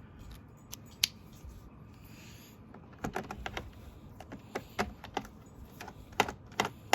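Plastic Roomba parts, the brush and its end caps, being handled and fitted together: scattered sharp clicks and taps, several in quick succession about three seconds in and more near the end.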